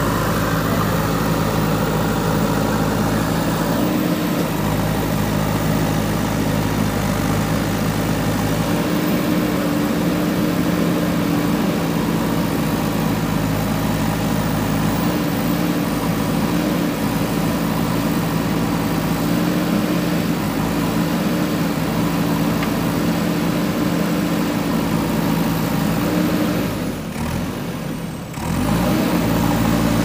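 JCB 3DX backhoe loader's diesel engine running steadily while the machine works with a loaded front bucket. The engine note dips and shifts briefly near the end, then comes back.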